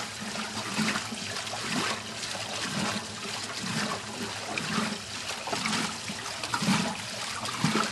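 Water sloshing and splashing in a Whirlpool washing machine's tub as the agitator churns a load of clothes, with a swish about once a second.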